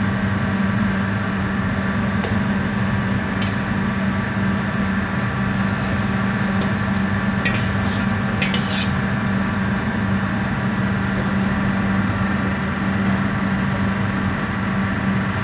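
A steady machine hum with a strong low tone, with a few light clicks or clinks over it.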